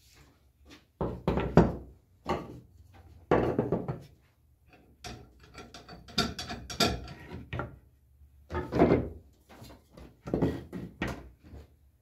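Wooden float-frame moulding pieces being set down and shifted on a wooden workbench: a series of irregular knocks and thunks, with a cluster of quicker clatters midway.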